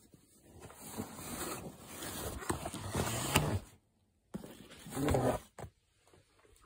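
Cardboard packaging scraping and rustling as a shock absorber is slid out of its long box, with a few light knocks.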